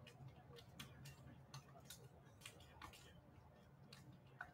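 Near silence: faint outdoor ambience with scattered light ticks and a low steady hum.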